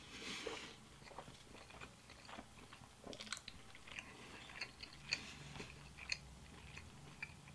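A person chewing a mouthful of Wendy's Baconator bacon cheeseburger close to the microphone: faint, irregular soft clicks and wet smacks of the mouth.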